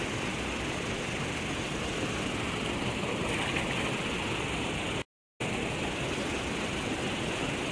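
Steady rushing outdoor noise by a river, with no distinct events; the sound cuts out completely for a moment about five seconds in.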